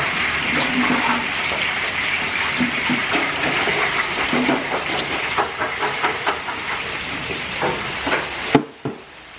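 Shallots and garlic frying in hot oil in a large aluminium wok over a gas burner: a steady sizzle, with a few knocks and clatters as more chopped shallots are tipped in from a plastic basin. The sizzle stops abruptly near the end.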